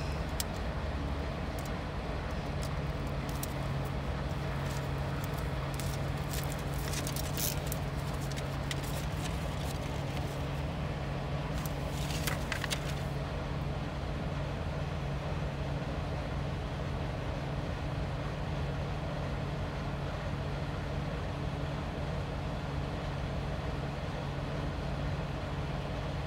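Steady hum of an idling engine, with a few short scratchy rustles about six to eight seconds in and again around twelve seconds.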